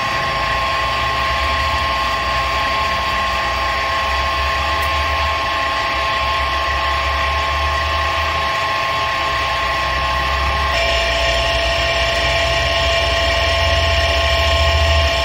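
Wilton model 2455 drill press running and drilling into a workpiece clamped in its vise: a steady mechanical whine of several tones over a low hum. About eleven seconds in the tones shift to a new set and hold there.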